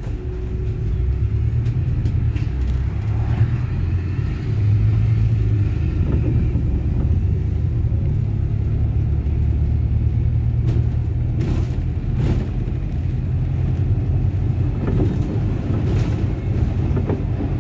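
Dublin Bus city bus running along the road: a steady low engine and road rumble that swells over the first couple of seconds as the bus gets going, with a few brief rattles.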